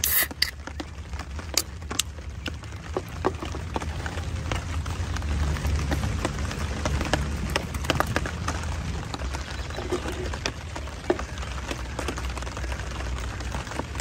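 Scattered raindrops tapping irregularly on a tent over a steady low rumble, with a short hiss at the very start.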